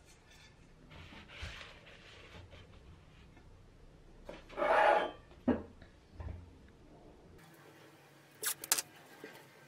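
Handling sounds on a workbench as a metal lamp shade is set down on a sheet of paper: a loud rough rubbing and rustling about five seconds in, followed by two dull knocks. Near the end come a few sharp crackles of masking tape being pulled and handled.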